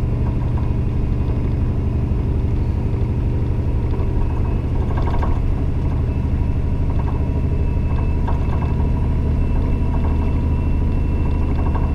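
Volvo VNL 780 semi truck's diesel engine running with a steady low drone, heard from inside the cab.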